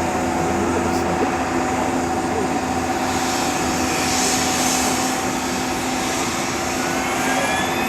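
Jet airliner on the ground humming steadily with several held tones, as during engine start. About seven seconds in, a whine begins rising in pitch as a turbofan engine starts to spool up.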